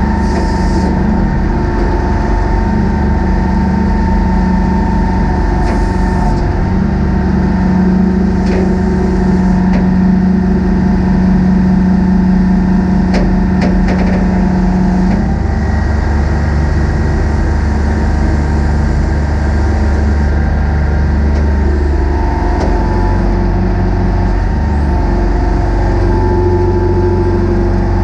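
Warner & Swasey Hopto H1900 hydraulic excavator's diesel engine running steadily, its tone shifting about halfway through and again a few seconds later. A few light clicks come just before the first change.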